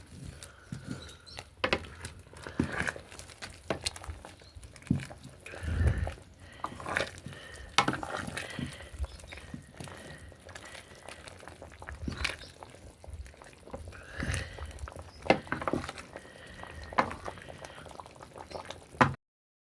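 A pot of matoke and beef stew boiling over a wood fire, bubbling and gurgling with irregular sharp pops. It cuts off abruptly near the end.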